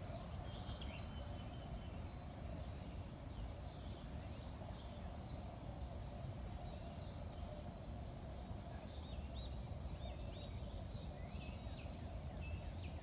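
Small birds chirping and whistling with short, quick notes throughout, over a steady low outdoor rumble and hum.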